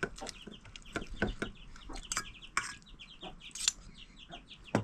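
Domestic chickens: quick, repeated short high peeps, as from chicks, with clucking, and a few sharp clicks and knocks scattered through.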